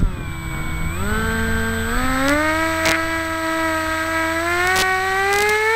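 Electric motor of a foam RC B-2 plane whining, its pitch stepping up several times as the throttle is raised.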